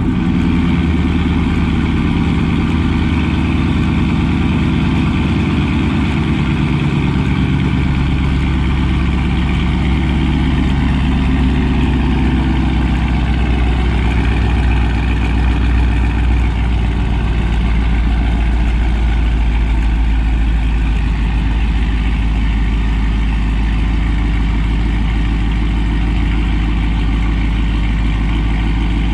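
2019 Dodge Charger R/T's 5.7 HEMI V8 idling loudly through freshly fitted 1-7/8 inch stainless long-tube headers with a catted mid-pipe. The idle shifts over the first dozen or so seconds, then holds steady.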